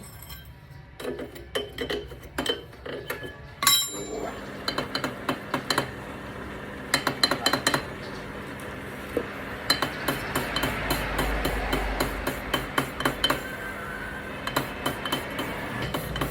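Metal tools tapping, knocking and clinking against metal parts in irregular strikes. A steady low hum comes in about four seconds in.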